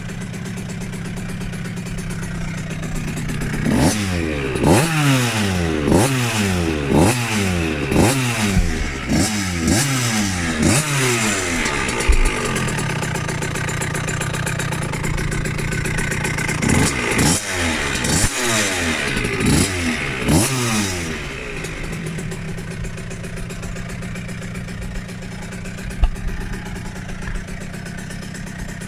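KTM 65 SX's small two-stroke single-cylinder engine, after a rebuild, idling and then blipped through a quick run of about eight sharp revs. It drops back to idle, gets another burst of four or five revs, and settles to idle again.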